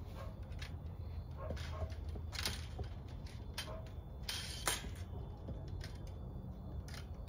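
Plastic zip ties being pulled tight: short ratcheting rasps, the two loudest about two and a half and four and a half seconds in, among scattered light clicks, over a low steady rumble.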